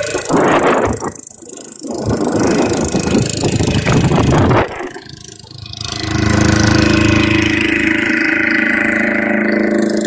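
Motor ferry's engine running as the loaded boat crosses open water, with rough wind noise on the microphone in the first half. After a short drop about five seconds in, the engine settles into a steady drone.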